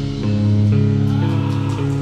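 Slow, heavy doom-metal music: guitar and keyboard hold steady low chords that step to new notes a few times.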